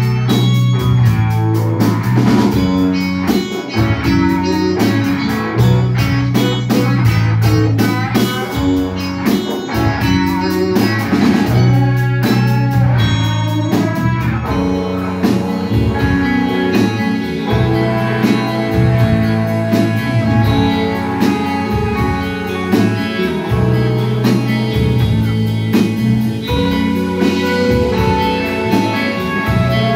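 Live instrumental rock band playing: two electric guitars over a bass guitar and a drum kit.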